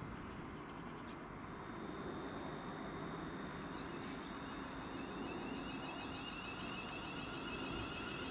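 Train approaching: a steady low rumble with thin high whining tones, which thicken into several wavering whines about halfway through and grow slowly louder.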